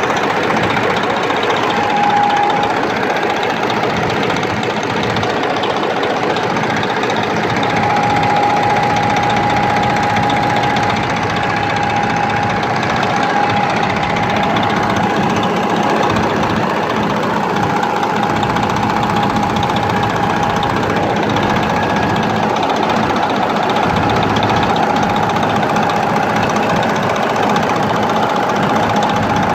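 Detroit Diesel Series 60 12.7-litre inline-six diesel idling with a bad injector, which the owner puts down to a loose, wrongly connected injector harness. A high steady whine comes and goes over the engine noise.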